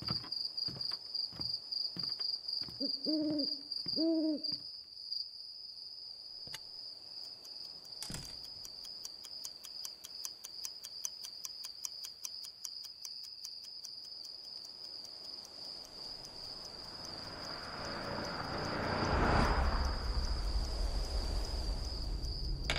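Night-time ambience: an owl hoots twice a few seconds in over steady cricket chirping and the regular ticking of an alarm clock. Near the end a low, noisy swell rises and peaks.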